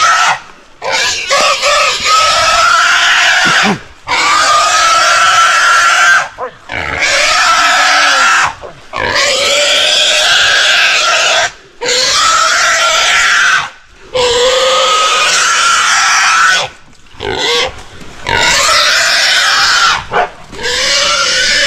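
Wild hog squealing loudly while hunting dogs hold it. It gives about eight long, high screams, each a couple of seconds long, broken only by short gasps for breath.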